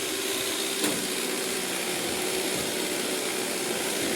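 Roomba robot vacuum running: a steady motor hum with an airy hiss, and one sharp click about a second in. The owner finds it sounds completely different from normal and doesn't know why, suspecting two months of disuse.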